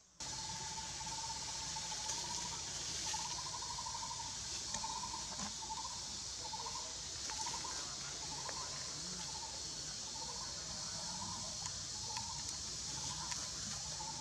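A short warbling animal call repeating about every half second to two-thirds of a second, over a steady high-pitched hiss and a low rumble.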